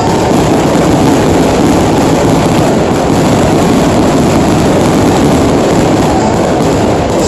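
A dense fireworks barrage: many shells bursting in quick succession, their bangs running together into one loud, continuous rumble.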